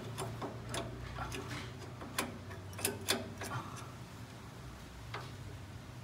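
Irregular metal clicks and clinks of hand wrenches on the 18 mm lower mounting bolt of a rear shock absorber as the bolt is worked loose by hand, over a faint low hum.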